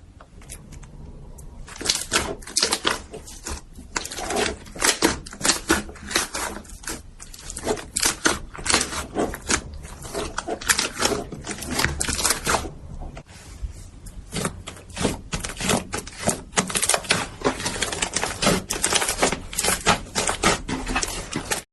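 Slime being squished and poked: dense, rapid crackling and popping clicks that begin about two seconds in, ease off briefly about two-thirds of the way through, then cut off abruptly at the end.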